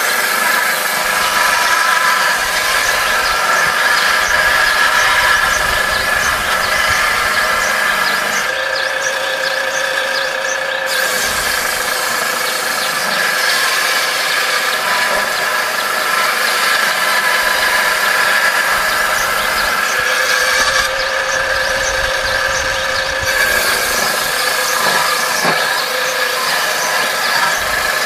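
Homemade table saw, its blade belt-driven by a reused water-pump motor, running with a steady high whine while wood strips are ripped through the blade; the hissing cutting noise stops twice for a couple of seconds between cuts.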